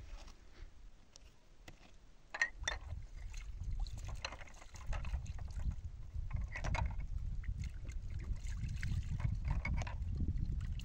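Hand-washing dishes in a plastic basin: water sloshing and splashing in bursts, with a few sharp knocks of a glass and plastic tray, over a steady low rumble.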